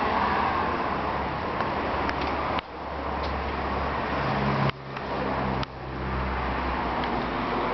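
Steady traffic and street noise with a low hum in the middle. The level drops suddenly three times: about a third of the way in, and twice past the middle.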